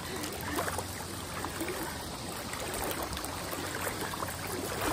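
Shallow water sloshing and trickling as people wade through it, pushing an inflatable kayak along.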